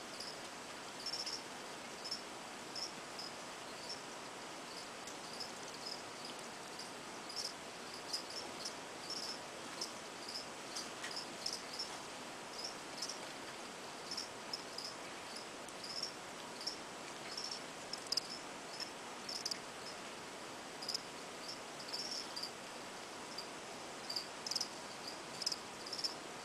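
A cricket chirping: short high chirps repeated unevenly, a couple each second, over a steady faint hiss.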